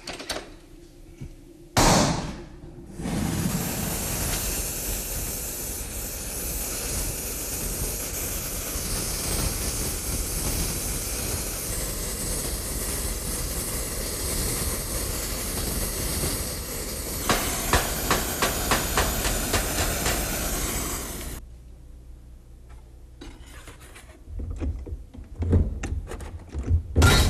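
Oxy-acetylene welding torch: a sharp burst about two seconds in, then the flame hissing steadily while a filler rod is fed, turning into a rapid crackle near its end and cutting off suddenly. A few metal knocks follow near the end.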